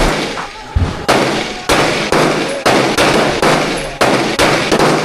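Gun fired in quick succession, about ten sharp shots at roughly two a second, each with a short echo tail.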